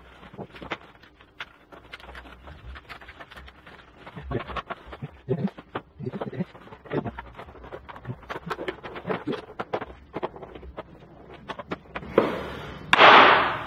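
Small clicks and knocks of coax cables, connectors and a metal 1U rack enclosure being handled during assembly. Near the end, two louder scrapes as a screwdriver works on the closed case.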